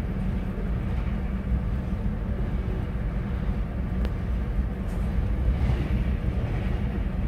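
Freight train of box wagons rolling past, a steady low rumble of wheels on rail with a couple of faint clicks in the middle.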